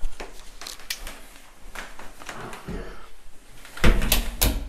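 Scattered clicks and knocks of people moving about and handling things, with a few louder thumps near the end.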